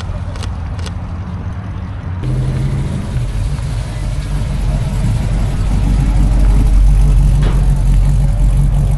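Car engine and exhaust rumbling at low speed; about two seconds in the sound changes abruptly to another car's steady low engine note, which grows louder over the next several seconds as it comes past.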